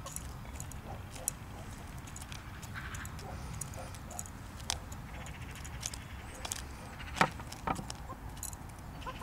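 Hens pecking seed and dried mealworms from a plastic tub: irregular sharp clicks and taps of beaks striking the feed and the plastic, with two louder taps about seven seconds in.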